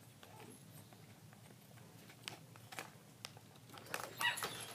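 A few faint clicks of a small plastic toy package being handled, then a short dog vocalization about four seconds in.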